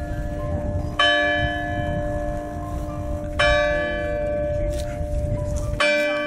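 A bell tolling at an even pace, struck three times about two and a half seconds apart, each strike ringing on into the next. Under it a low rumbling noise stops abruptly near the end.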